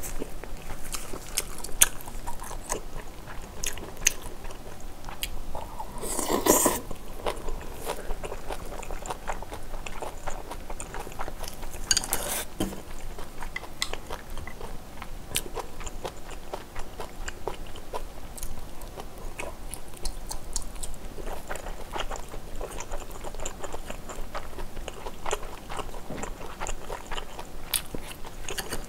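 Close-miked chewing of a mouthful of braised kimchi and rice: wet mouth clicks and smacking. There are two louder, noisier moments about six and twelve seconds in.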